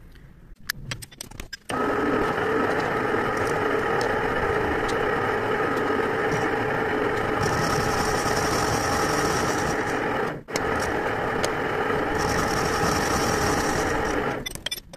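Metal lathe running: a few clicks, then a loud steady mechanical sound with several steady tones that starts abruptly about two seconds in. It drops out briefly about ten seconds in, a higher hiss joins it twice, and it stops just before the end.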